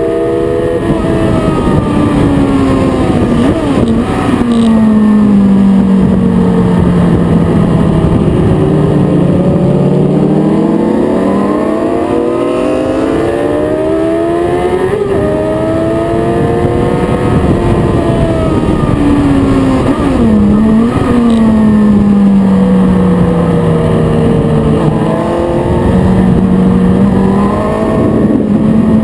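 Sports motorcycle engine at track speed, heard from on the bike: its pitch falls slowly as it slows for corners and rises again as it accelerates out, twice, with two quick dips from gear changes, over steady wind noise.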